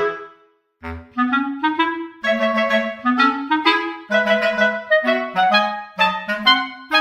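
Background music: a clarinet-like woodwind playing a bouncy melody of short notes, broken by a brief pause just before a second in.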